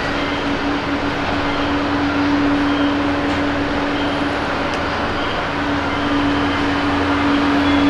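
Jet engines of an All Nippon Airways Boeing 777-200ER climbing out after takeoff: a steady, loud rush of engine noise with a single steady drone note running through it.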